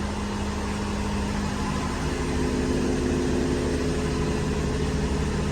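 An engine idling steadily: a low hum with several steady tones, growing slightly louder over the first couple of seconds.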